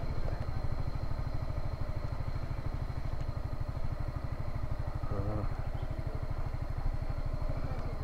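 Honda Forza 350 scooter's single-cylinder engine running at low speed as the scooter rolls slowly into a parking spot, a steady low pulsing.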